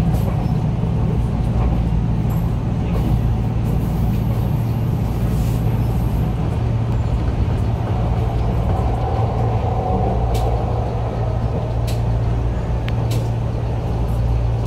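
Enshu Railway 2000 series electric train running at speed, heard from inside the cab: a steady low rumble of wheels on rail and a motor hum, with a few faint ticks in the second half.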